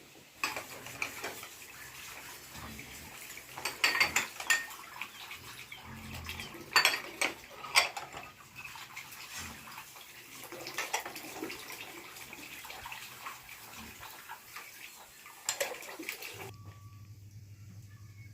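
Water splashing with pots, dishes and utensils clattering, as in washing up by hand; the clatter is loudest around four and seven to eight seconds in, then it stops suddenly about sixteen seconds in, leaving a steady low hum.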